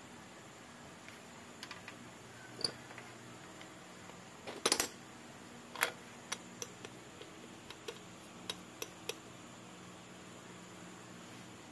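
Metal clinks and taps as tools knock against a coil spring compressor and strut: a sharp cluster of clinks about five seconds in, another a second later, then several lighter taps.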